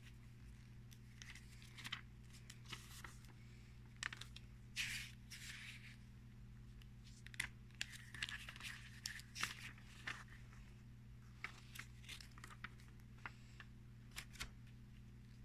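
Thin paper instruction booklets handled and their pages flipped, making faint, irregular short rustles and crinkles.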